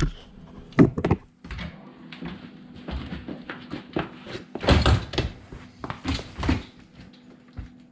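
A string of knocks, thuds and rattles from a dishwasher being handled and shifted in its cabinet opening, with the loudest clatter about five seconds in.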